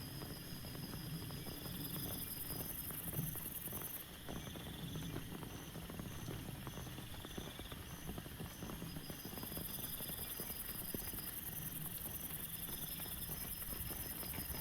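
Rain falling steadily, its drops pattering densely, under a high, evenly pulsing chorus of animal calls.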